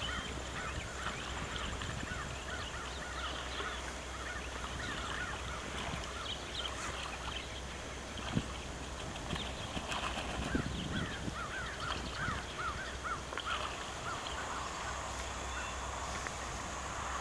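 Domestic waterfowl calling, scattered short calls with a quick run of them about two-thirds of the way through, over a steady low wind rumble on the microphone.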